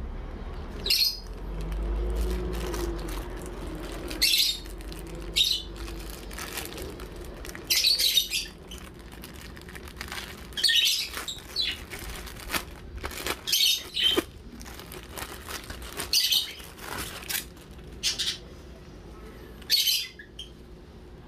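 Clear plastic packaging bag crinkling in short, irregular bursts as it is opened and handled, over a low steady hum.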